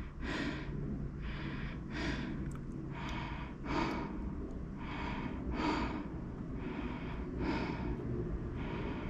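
A person's breathing close to the microphone: soft, regular whooshes about every two-thirds of a second.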